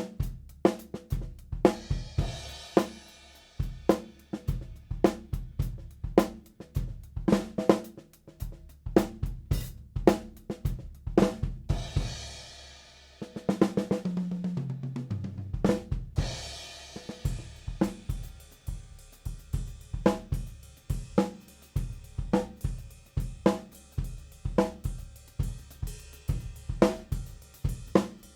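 Tama Superstar Classic acoustic drum kit with Zildjian and Sabian cymbals played in a steady beat on kick, snare and cymbals. About thirteen seconds in, a fill steps down the toms from high to low, and a crash cymbal comes in as the beat resumes.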